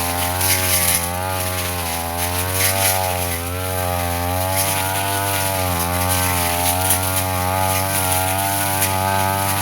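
Brush cutter engine running steadily at high revs, its pitch dipping and recovering as the blade bites into thick grass and undergrowth, with crackling of vegetation being struck.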